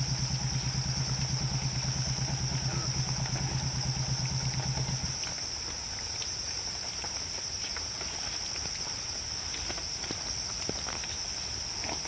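A motorcycle engine idling with a fast low firing pulse, cut off about five seconds in. A steady high insect drone, crickets, continues throughout.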